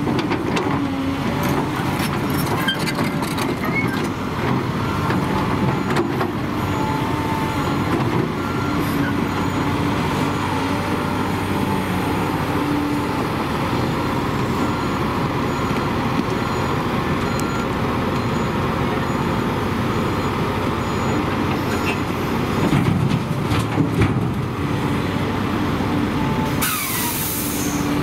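Volvo EC210B excavator's diesel engine and hydraulics working steadily as it digs frozen dirt and loads it into a dump truck, with clunks and thuds of dirt and rocks dropping into the truck's bed. A short hiss of air near the end.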